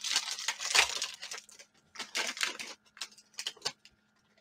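Foil wrapper of a trading-card pack crinkling as it is torn open and the cards pulled out, in quick rustling bursts, busiest in the first second and a half.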